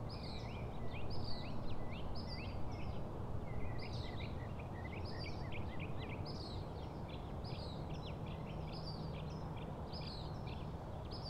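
Birds chirping: short, quick chirps repeating over and over above a steady background hiss and rumble.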